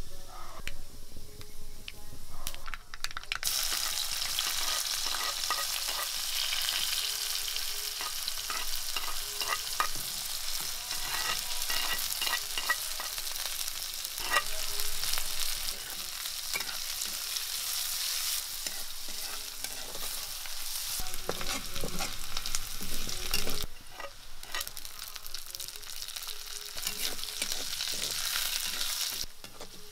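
Mustard seeds popping in hot oil in a metal kadai. About three seconds in, a loud sizzle starts as sliced shallots and chillies go into the oil, then frying with the clatter of a steel spatula stirring against the pan. The sizzle falls lower a few seconds before the end.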